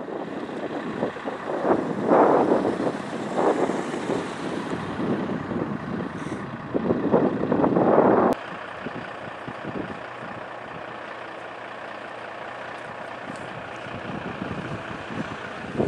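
Road traffic: vehicles passing close by with engine and tyre noise that swells loudly several times. About eight seconds in, the sound cuts abruptly to a quieter, steady traffic rumble.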